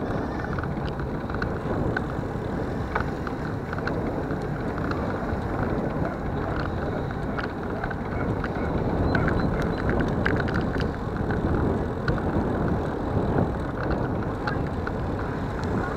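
Wind rushing over the microphone and tyre-on-road rumble from a vehicle riding along a paved road, with scattered light clicks and rattles.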